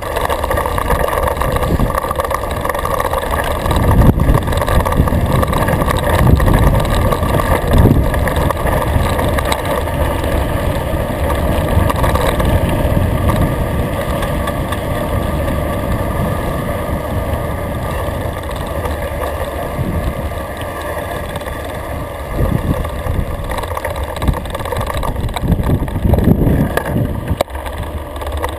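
Downhill mountain bike ride heard from a GoPro on the bike: steady wind rumble on the microphone with tyres rolling over grass and gravel, and louder jolts from bumps about four, six and eight seconds in and again near the end.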